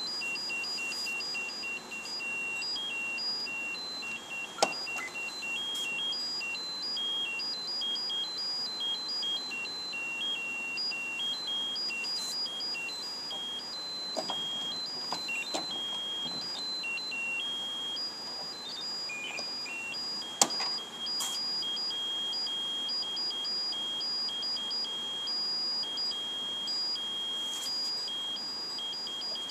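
1972 Triadex Muse digital tone generator playing a high-pitched stepping melody of single beeping tones, several notes a second, the pattern shifting partway through as its sliders are moved. A few sharp clicks, the loudest at about five and about twenty seconds in.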